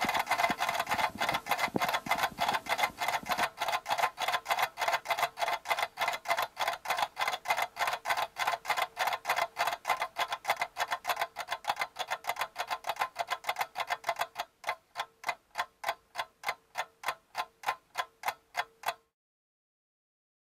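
Clock ticking steadily, about three ticks a second, over a faint steady tone. The dense background under the ticks drops away about two-thirds of the way through, leaving the bare ticks, which then stop suddenly near the end.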